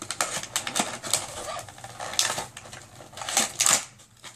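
A cardboard toy box and its plastic and paper packing being handled and pulled open: irregular crinkling and rustling with sharp clicks, loudest about three and a half seconds in.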